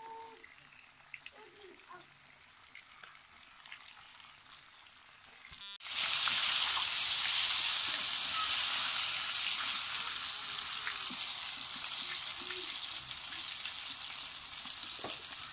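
Chicken drumsticks deep-frying in a pot of hot oil, a steady loud sizzle that starts abruptly about six seconds in, after a much quieter stretch.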